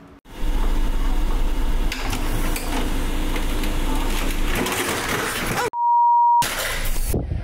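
Desktop printer running under a cat sitting on it: a loud, dense mechanical run with a steady low hum that lasts about five seconds and cuts off suddenly. A single steady electronic bleep follows for under a second, then noisy handling near the end.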